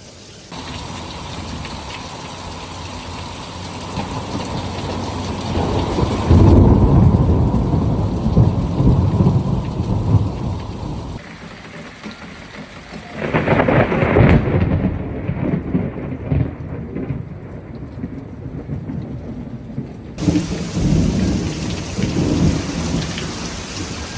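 Heavy rain pouring down with rolling thunder: a long, loud rumble about a quarter of the way in, another about halfway, and more rumbling near the end.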